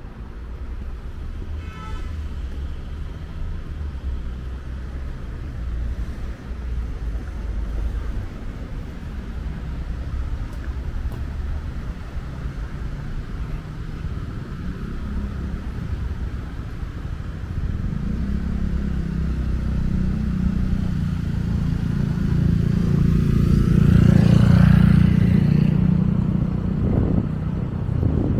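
Street traffic running steadily, with a vehicle passing close and loudest about 24 seconds in. A short beep sounds about two seconds in.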